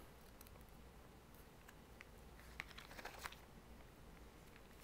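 Near silence with faint rustling and a few soft clicks of Bible pages being turned, mostly around the middle.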